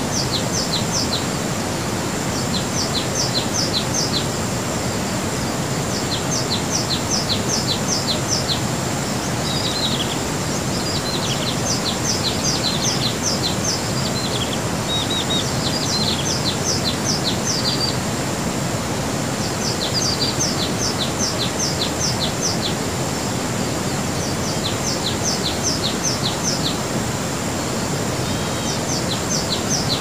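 Waterfall's steady rush of water, with a songbird repeating short phrases of quick, high, downward-slurred chirps every few seconds over it.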